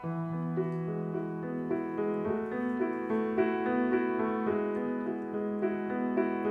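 Background music: a gentle piano melody with sustained chords.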